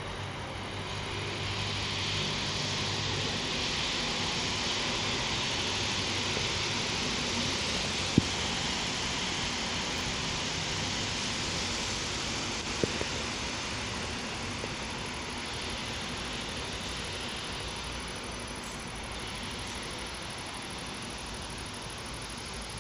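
Electric multiple-unit passenger train running past on a far track: a steady rushing hiss of wheels on rails that swells and then slowly fades. Two sharp clicks stand out, at about eight and thirteen seconds in.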